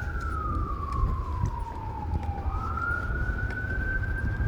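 Emergency vehicle siren wailing: its pitch slides slowly down over about two and a half seconds, then climbs back up, over a steady low rumble.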